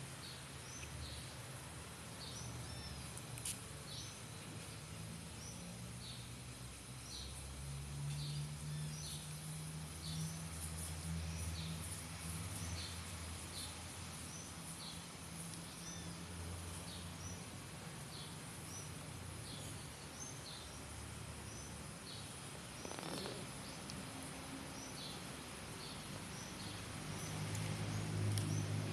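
Outdoor ambience: short high chirps repeating about once a second over a low steady hum, which swells twice, the second time near the end.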